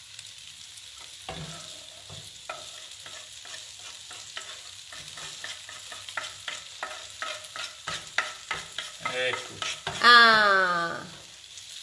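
Tomato sauce sizzling in a frying pan as chopped olives and chili are scraped in and stirred with a wooden spatula. Quick clicks and knocks of the spatula against the pan and cutting board come more often in the second half. Near the end a loud sliding tone falls in pitch for about a second.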